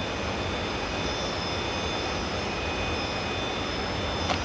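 Steady rushing background noise, with a faint, even high-pitched whine from the RC rock crawler's electric motor and speed controller as it creeps over the rocks.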